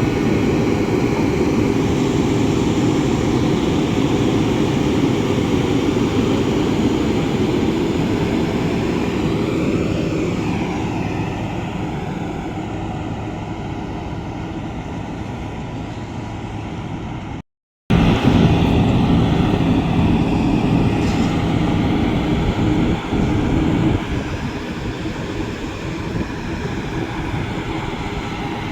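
Diesel engine of a heavy construction machine running steadily under work. The sound cuts out completely for a moment about two-thirds of the way through, then carries on.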